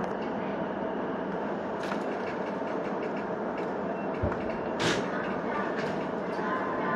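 Steady running noise of a Keihin-Tohoku line electric commuter train, with a few sharp clicks and a brief low thump.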